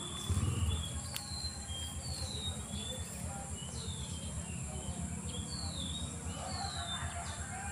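Birds calling with short, falling whistled notes, about two a second, over a steady high-pitched insect drone. A brief low rumble comes about half a second in.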